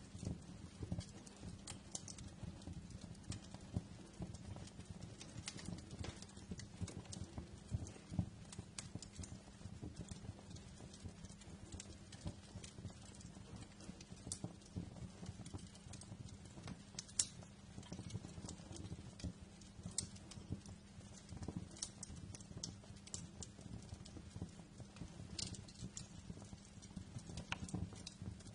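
Wood fire crackling steadily: a dense low crackle with scattered sharp pops.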